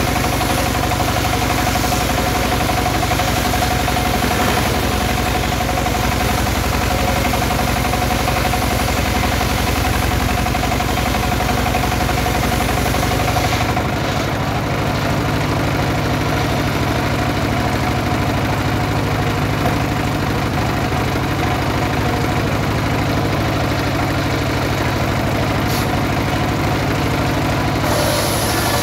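Small single-cylinder stationary diesel engine running steadily under load, driving a homemade log saw that is cutting a teak log. The sound changes about halfway through, losing some of its hiss, and the hiss comes back near the end.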